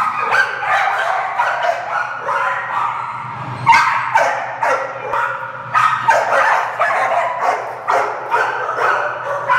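Cairn terrier barking and yipping repeatedly in high-pitched barks, about two a second, with a short pause about three seconds in. A steady low hum runs underneath.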